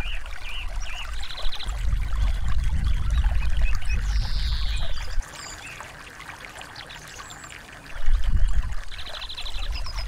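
Small stream of water pouring and trickling over rocks, with small birds chirping and a short falling whistle about four seconds in. A low rumble under the water cuts off suddenly about five seconds in and comes back around eight seconds.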